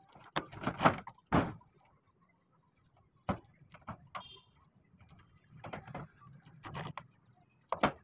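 Green cabbage leaves being torn off the head by hand, about six separate crisp crunching tears spread roughly a second apart.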